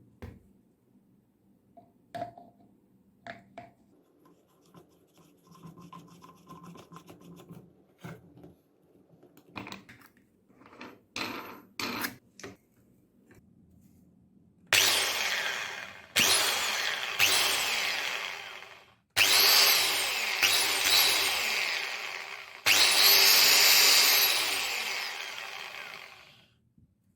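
Mini angle grinder run in four bursts, switched on and off: the motor runs loud and high for a few seconds each time, then cuts off. Before that, small clicks and handling of the tool. The switch has just been cleaned and lubricated to cure it cutting the motor in and out.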